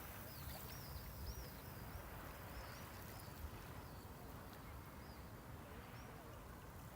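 Soft sea waves washing on the shore, a steady low wash, with a small bird giving a run of short, high chirps over the first five seconds or so.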